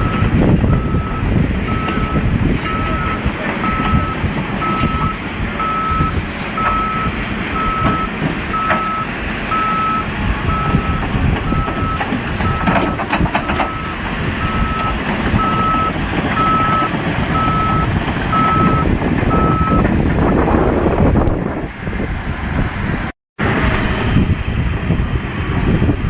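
A heavy machine's reversing alarm beeping steadily at one pitch over the loud rumble of its engine; the beeping stops about twenty seconds in while the engine runs on, and the sound drops out for a moment near the end.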